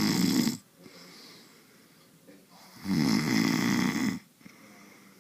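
Snoring: one snore ends about half a second in, and the next starts about three seconds in and lasts about a second and a half, with much quieter breathing between.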